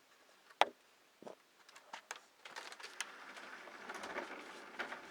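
Handling noises: a sharp knock about half a second in, a few lighter clicks, then a longer rustling noise over the last couple of seconds.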